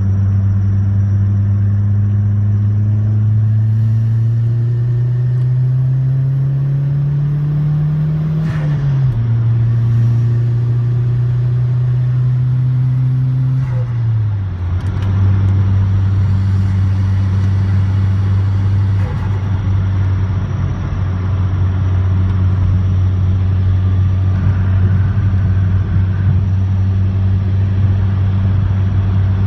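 2003.5 Mazdaspeed Protege's turbocharged 2.0-litre four-cylinder, heard from inside the cabin. It pulls with rising revs, shifts up twice (sharp drops in pitch about eight and fourteen seconds in), then cruises at steady revs.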